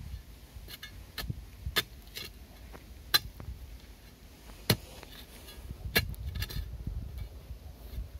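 A long-handled digging bar striking and prying at loose vermiculite ore and stone: sharp knocks at irregular intervals, about eight in all, the loudest near the middle, over a low rumble.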